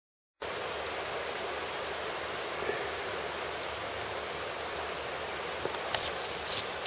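Rushing river water over rapids: a steady, even hiss of flowing water, with a few faint clicks near the end.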